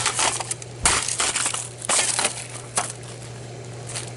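Metal bat smashing a plastic Nortel Northern Telecom desk phone: four hard blows about a second apart, with the housing cracking and crunching between them, over a steady low hum.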